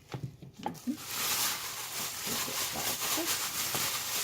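Hands, in a plastic glove, kneading raw chicken pieces in a wet spice and coconut-milk marinade: a steady, grainy squishing and rustling that starts about a second in.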